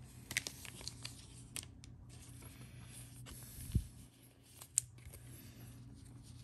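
Baseball trading cards being handled: faint rustling and a few light clicks as the cards are moved and shuffled in the hands, with a soft thump a little before four seconds in.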